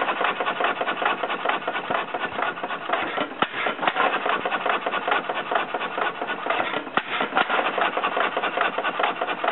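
1921 Witte headless 4 hp single-cylinder hit-and-miss engine running, a steady mechanical clatter of its valve gear and flywheels, with a couple of louder knocks.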